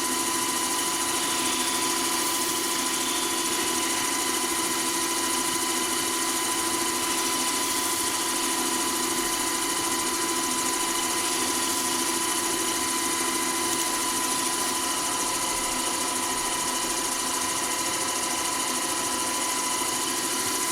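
Wood lathe motor running steadily at about 1200 rpm with a steady whine, the workpiece spinning while being polished with abrasive paste.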